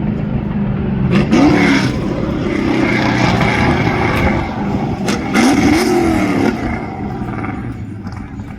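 A 427-cubic-inch V8 race truck running hard under acceleration, its engine note climbing twice, then fading away over the last couple of seconds.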